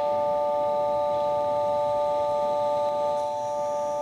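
Station departure signal: a steady electronic chord of several pure tones, held without a break at one level.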